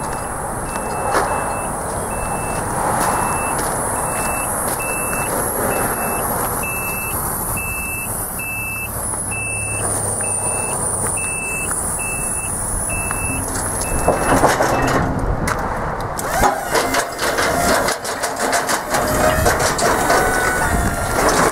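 Electric scissor lift lowering its platform, its descent alarm giving short high beeps about one and a half times a second under a faint steady whine. The beeping stops about 14 seconds in, and irregular clattering and crunching follow.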